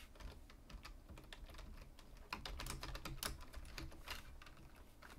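Typing on a computer keyboard: a run of quick, faint keystroke clicks.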